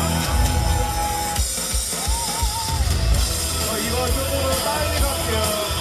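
Live band music driven by a drum kit, with a wavering melodic line over a steady low beat.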